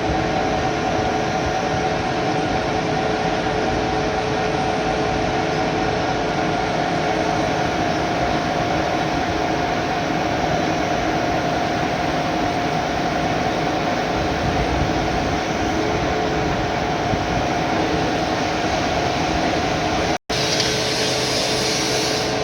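Lathe running steadily, turning a Delrin (acetal plastic) part: a constant hum with a dense hiss over it. The sound drops out for an instant near the end.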